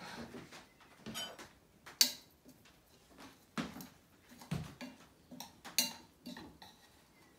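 Metal serving spoon scraping and clinking against a casserole pot as cooked rice is spooned out, a string of irregular clinks and scrapes with the sharpest about two seconds in.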